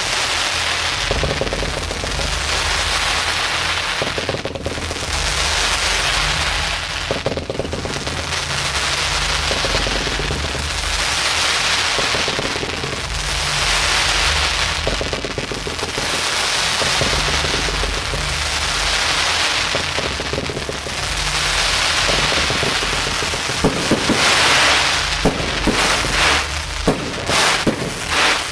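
Fireworks crackling in a dense, continuous rattle that swells and fades every couple of seconds, with sharp bangs near the end.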